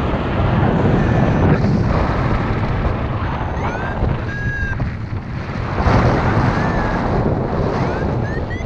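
Wind rushing over the microphone in paraglider flight is the loudest sound throughout. A flight variometer's electronic beeps come and go under it, as short tones that glide up in pitch along with a few held notes.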